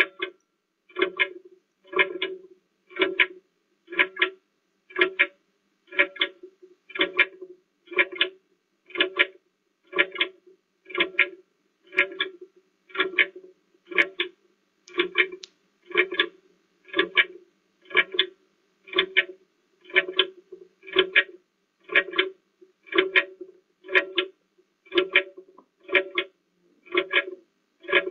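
Countdown timer sound effect: a short, pitched, plucked-sounding tick once a second, steady throughout, marking off a 30-second answer time.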